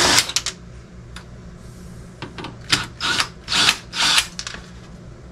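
Cordless drill-driver whirring for about half a second as it backs a screw out of a plastic dehumidifier cabinet. Then come several short scrapes and clicks as the cabinet and tools are handled.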